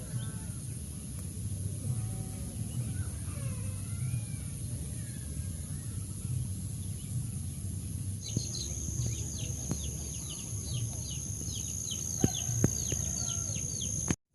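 Outdoor rural ambience: a steady low rumble under a constant high-pitched drone. About eight seconds in, a second high drone starts, along with a bird chirping rapidly in short falling notes, about three or four a second, and a few sharp clicks.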